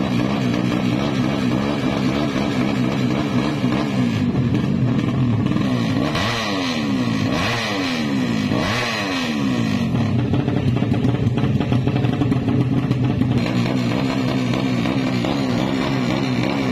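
Tuned single-cylinder four-stroke engine of an MX-class 200cc drag motorcycle running on its stand, its revs wavering up and down. In the middle come several quick rises and falls in pitch.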